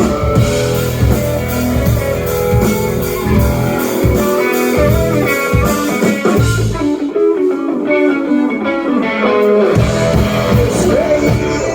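Rock band playing an instrumental passage: electric guitar over bass and drums. About seven seconds in, the bass and drums drop out, leaving the guitar playing on its own.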